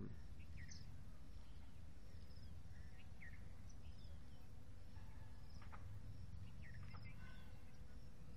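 Outdoor ambience: a steady low background rumble, with scattered short bird chirps now and then.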